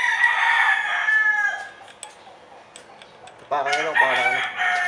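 Rooster crowing twice: one long crow already under way that falls in pitch as it ends after about a second and a half, and another starting about three and a half seconds in.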